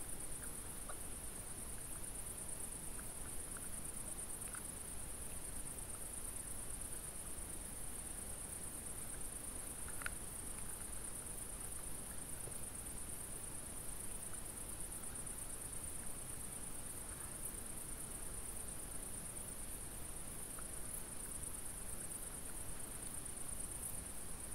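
Crickets singing at night: a steady, high-pitched, finely pulsing chirr that runs without a break. A few faint small ticks show over it, the clearest about ten seconds in.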